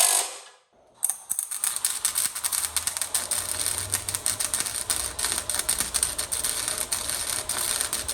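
Electric welder arc crackling: a steady, dense sizzle of rapid clicks, starting about a second in after a brief pause, as new steel pieces are welded into the car's front end.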